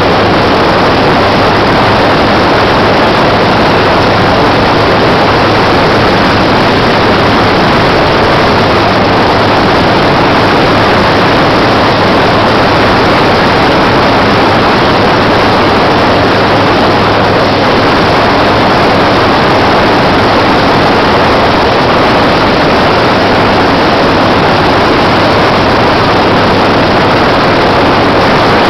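AMF-era Harley-Davidson Shovelhead V-twin running steadily at cruising speed, largely buried under wind rushing over the microphone.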